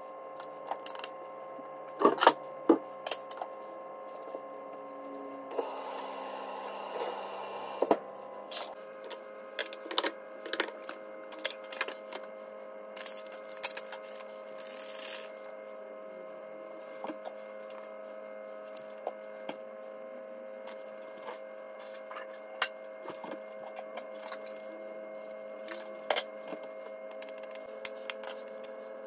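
Kitchen food-prep handling sounds: scattered knocks and clicks of a knife, cutting board and bowls on a counter, with two stretches of a few seconds of rustling or hissing noise, over a steady hum.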